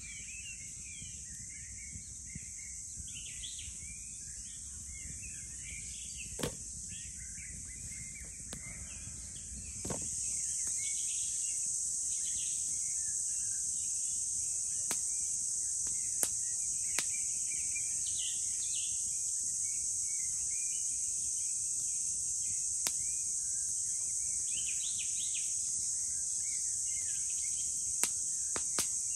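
Forest ambience: a steady high drone of insects, birds chirping now and then, and a few sharp crackles from the campfire. The insect drone grows louder about ten seconds in.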